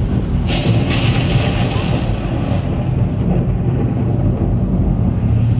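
Strong wind buffeting the microphone: a loud, steady low rumble, with a burst of hiss from about half a second in to about two and a half seconds.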